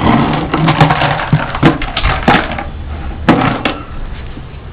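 A blue plastic bucket being handled, giving a run of irregular knocks and clatters.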